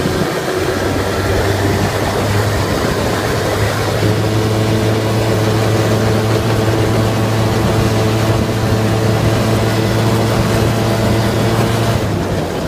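Quad (ATV) engine running at a steady speed while the quad is ridden over dirt, easing off briefly near the end.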